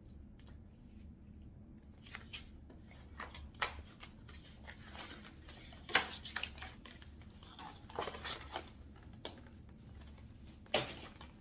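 Rustling and handling of a cotton t-shirt and its packaging, with scattered light clicks and two sharper snaps, one about halfway through and one near the end.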